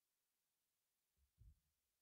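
Near silence, with one brief, faint low thump about a second and a half in.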